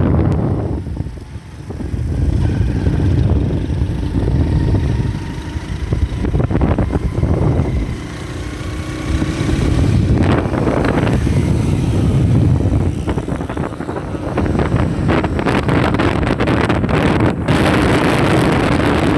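Wind buffeting the microphone: a loud, gusting low rumble that swells and drops, with a brighter rushing hiss for the last few seconds.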